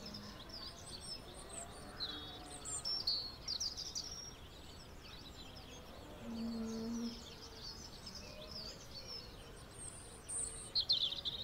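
Outdoor ambience of many small birds chirping and trilling, with a short low hum about six seconds in.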